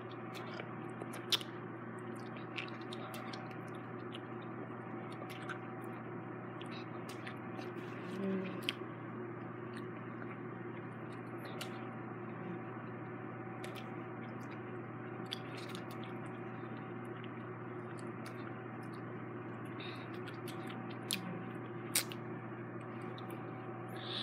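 Someone chewing and sucking on a lemon: faint wet mouth sounds and a few scattered small clicks, over a steady background hum.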